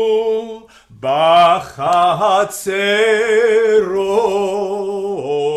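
A man chanting a Hebrew Torah verse in cantillation, drawing the words out in long held notes with vibrato, with a short break about a second in. The melody steps down to a lower closing note near the end.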